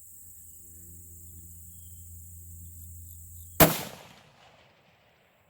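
A single shot from a 16-inch Faxon-barrelled AR-10 rifle about three and a half seconds in: one sharp, loud crack with a ringing tail that fades over about a second. Under it runs a steady high insect drone.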